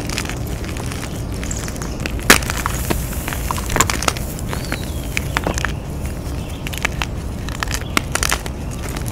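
Blocks of dyed gym chalk being crushed, giving scattered crisp cracks and crumbles. The sharpest snap comes a little over two seconds in. A steady low rumble sits underneath.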